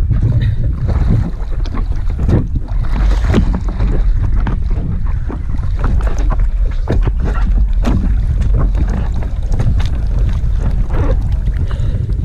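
Wind buffeting the microphone in a constant low rumble, over irregular splashing and slapping of lake water against a stand-up paddleboard as a person climbs onto it from the water.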